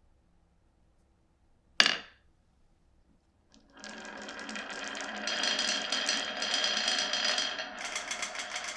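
Glass marbles on a wooden marble run: one sharp clack a little under two seconds in, then from about halfway a continuous rolling rattle of marbles running along the tracks, with a ringing tone over it.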